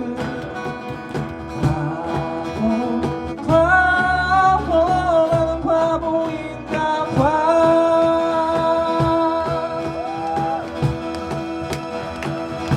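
Live acoustic band music: a strummed guitar over a steady beat, with long held melody notes twice, as the song's ending plays out after the last sung line.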